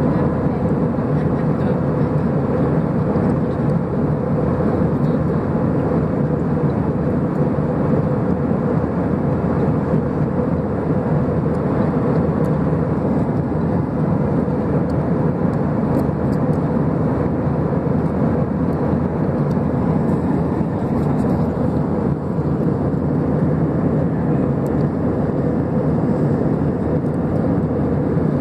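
Jet airliner in flight heard from inside the cabin: the steady roar of the engines and rushing air, with a steady hum running through it.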